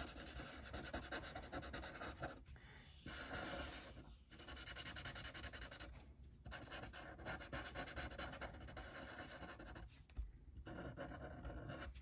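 Black felt-tip marker scribbling quickly back and forth on paper to fill in solid spots, faint and scratchy, with a few short breaks where the marker lifts off.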